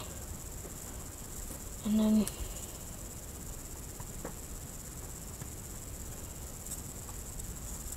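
A steady high-pitched whine over a low hiss, with a few faint ticks.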